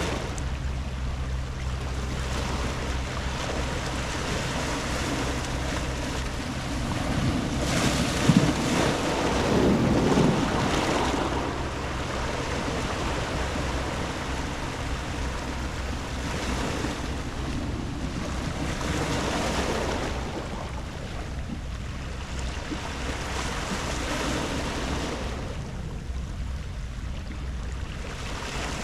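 Sea waves breaking and washing up a round-pebble beach in several slow swells, the largest about eight to eleven seconds in, over a steady low hum.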